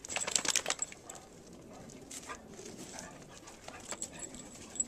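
A Great Dane making dog sounds as he moves about, with a quick run of sharp clicks in the first second and fainter scattered clicks after.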